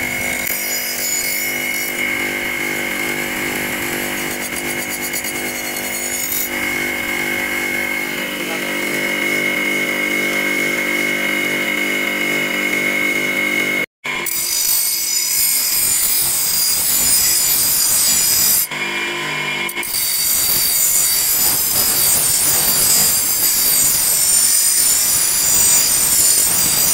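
Electric grinder running with a steady whine, its spinning wheel grinding against the steel tang of an old meat cleaver. About halfway through it cuts out for a moment, then the wheel grinds the cleaver's rusty blade with a harsher, hissing sound that briefly lets up a few seconds later.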